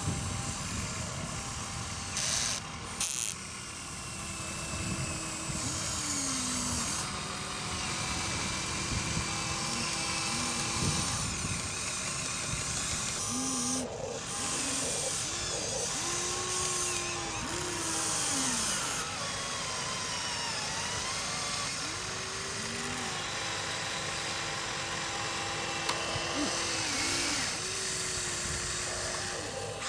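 Small electric gear motors of radio-controlled excavators and a bulldozer whining as they start and stop again and again, each run rising in pitch, holding, then falling away, over a steady grinding hiss.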